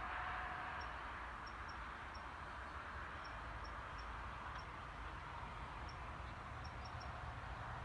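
Steady outdoor hiss that eases slightly after the first second, with faint, short high chirps scattered through it.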